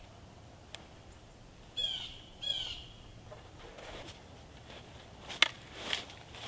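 A bird calls twice in quick succession, two short pitched calls about half a second apart. A few seconds later there is one sharp knock of the wooden tripod poles, followed by a rustle of dry leaves as the legs are set out.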